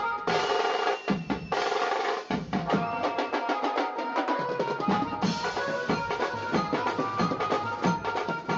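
Background music driven by drums and percussion, with a drum roll in the first couple of seconds.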